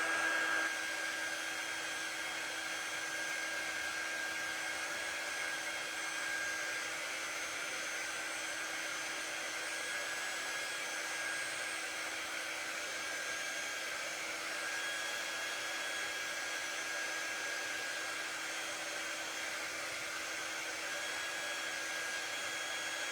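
Handheld craft quick-dry tool running steadily, blowing air to dry the paint on the cutouts: an even rush of air with a constant high whine. It is a little louder for a moment at the very start.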